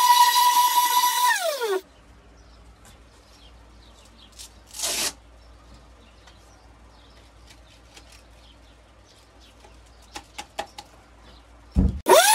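Electric woodworking power tool's motor running with a steady high whine, then switched off and winding down with a falling pitch about two seconds in. After a quiet stretch with a short hiss and a few light clicks, there is a thump and the motor is switched on again near the end, rising quickly back up to speed.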